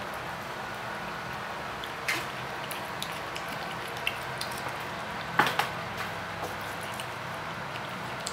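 A cat eating raw chicken: wet chewing and smacking with scattered small clicks. Louder clicks come about two seconds in and again about five and a half seconds in, over a steady background hiss.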